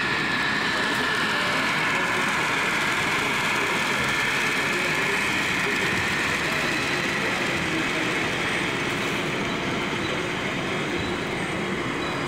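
Model train running along the layout track: a steady rolling whirr that holds at one level throughout.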